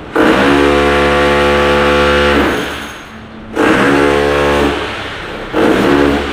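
Power tool run in three bursts while demolishing the kitchen: a long run of about two seconds, a shorter one about a second later, and a brief one near the end, each starting abruptly with a steady buzzing pitch.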